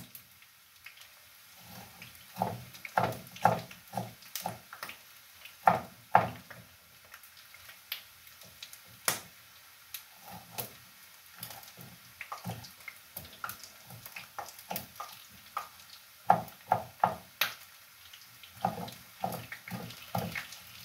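Kitchen knife chopping red onion on a cutting board: sharp knocks of the blade against the board in short irregular runs, with pauses between them.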